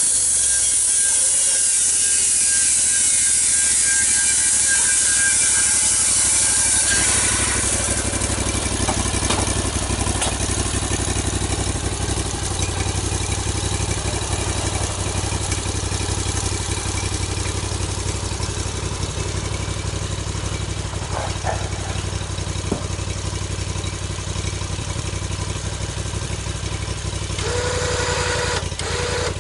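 Sawmill running: a steady engine drone throughout, with a loud high hiss for about the first seven seconds that stops abruptly, and a brief hiss again near the end.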